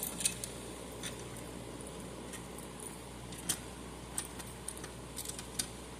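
A few sparse, sharp clicks and taps of small hard parts being handled as a fire alarm pull station is closed up. The clearest click comes about halfway through and a few more follow near the end, over a faint steady hum.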